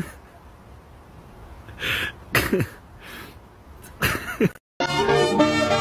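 Bulldogs at play giving several short, breathy sneezing huffs, each with a quick drop in pitch. About a second before the end these cut off and loud music with a steady beat starts.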